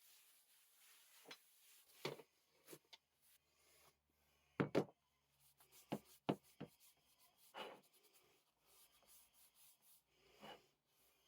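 Quiet workbench handling: scattered light rubbing and small knocks, with two louder knocks close together about halfway through.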